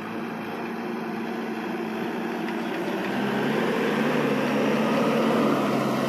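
JCB 3DX backhoe loader's diesel engine running steadily. It grows louder and deeper from about halfway through as the machine works the soil.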